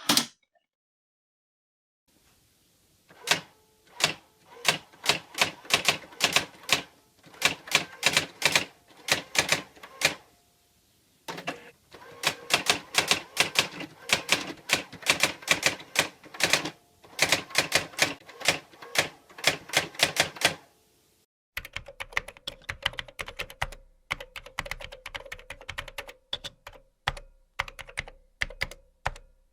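Typewriter keys struck in quick runs, each a sharp clack, with a short pause partway through. Near the end it gives way to a lighter, faster clatter of keys over a steady hum.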